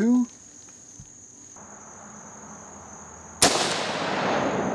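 A single rifle shot from a Marlin Model 336 lever-action in .30-30 Winchester: a sharp crack about three and a half seconds in, followed by a rolling echo that trails off over a second and a half. Crickets chirp in a steady high tone behind it.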